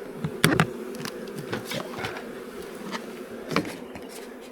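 A mass of honeybees from freshly installed packages buzzing as a steady hum, with a few sharp knocks and clicks from the hive being handled, the loudest about half a second in.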